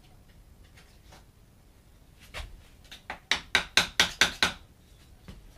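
A hammer tapping a wooden shim into the gap between a pre-hung door frame and the rough opening. One knock, then about half a second later a quick run of about seven sharp strikes, about four a second.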